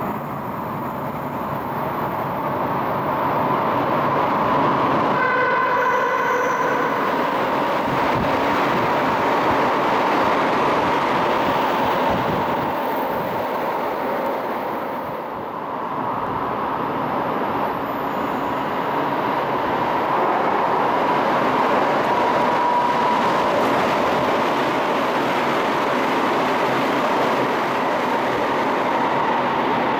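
Tsukuba Express train running through an underground station at speed without stopping: a steady rush of wheels and motors. A short horn sounds about five seconds in.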